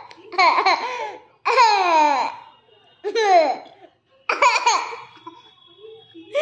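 A small boy laughing in four bursts, each one sliding down in pitch.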